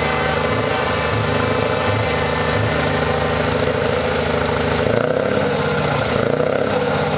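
Scania 164G 480 truck's V8 diesel running steadily at idle through an open straight-through exhaust with twin tailpipes. The sound is loud and even, with no clear rev rise in this stretch.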